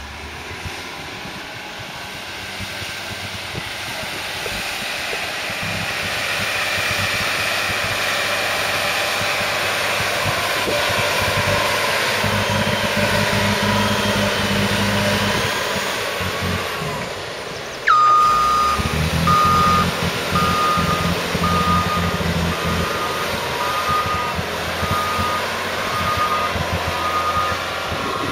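Diesel engines of heavy silage machinery running and growing louder. From about two-thirds of the way in, a reversing alarm beeps about once a second over the engine.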